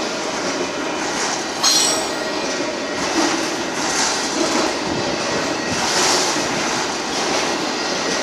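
A Union Pacific freight train's autorack cars rolling past on the rails with a steady rumble and rattle. A brief high-pitched wheel squeal comes just under two seconds in.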